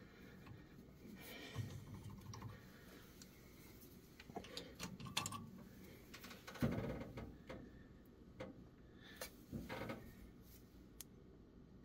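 Scattered light metallic clicks and knocks from an adjustable wrench working a reverse-twist bolt extractor set in a broken bolt in a cast-iron engine block, as the seized bolt refuses to come loose. The clicks come irregularly, mostly in the second half, with one duller knock about six and a half seconds in.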